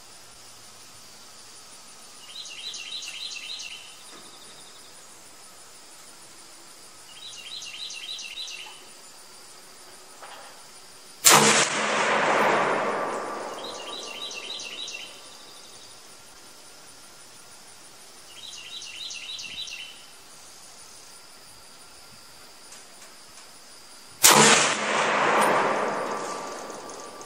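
Two single shots from a PTR-91 semi-automatic 7.62x51 (.308) rifle, about thirteen seconds apart. Each is a sharp crack followed by a long echo that trails off over a few seconds. Between the shots, a short burst of rapid high chirps comes back about every five seconds.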